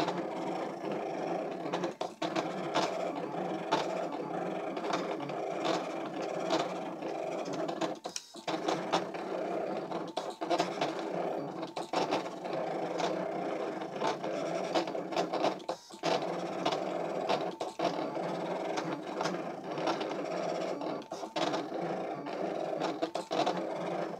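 Brother ScanNCut CM350 cutting machine running a cut: its motors drive the blade carriage and mat with a steady whir and light ticking. It stops for a moment about eight seconds in and again around sixteen seconds.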